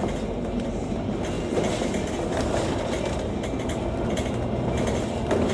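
Cabin noise inside a Volvo B9TL double-decker bus: a steady engine and road rumble, with scattered clicks and rattles from the bodywork and fittings.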